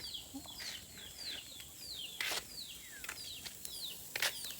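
Chicks peeping: a steady string of short, high peeps, each falling in pitch, a few every second, with scattered clicks and knocks among them.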